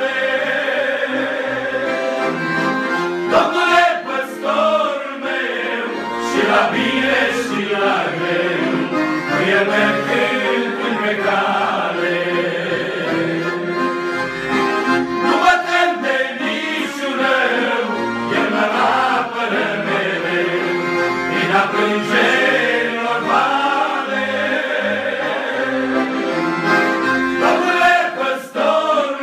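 A group of men singing together to an accordion accompaniment.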